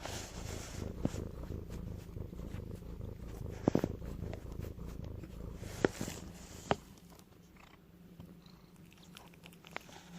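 A low, rhythmic purring that fades after about seven seconds, with a few sharp clicks partway through.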